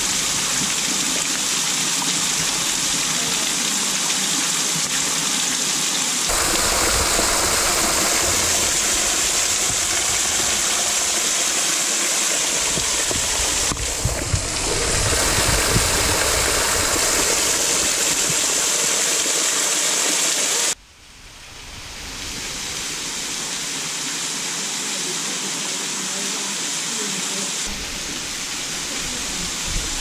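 A thin waterfall splashing down onto rock and a pool, heard up close from beside and behind the falling water: a steady rush of water. It shifts abruptly in tone a few times and drops out for a moment about two-thirds of the way through.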